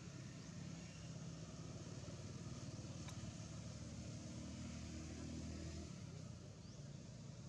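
Low, steady hum of a vehicle engine, growing louder through the middle and dropping away about six seconds in. A single sharp click sounds about three seconds in.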